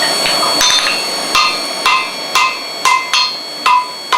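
Blacksmith's hammer striking wrought iron on an anvil, a steady run of ringing blows about two a second starting a little over a second in.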